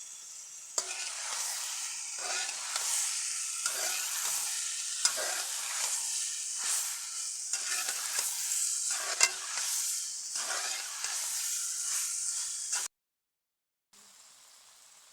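Chicken and okra (bhindi) sizzling as they fry in a pan, with a spatula stirring and scraping through them in repeated strokes. The sizzle cuts off suddenly near the end.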